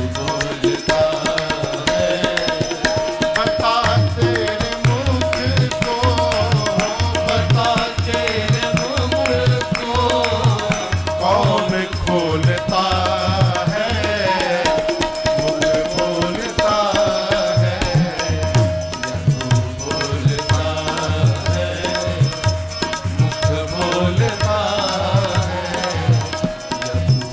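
Instrumental interlude of Indian devotional bhajan music: a hand drum keeps a steady rhythm under a held drone note while a melody instrument plays a winding line.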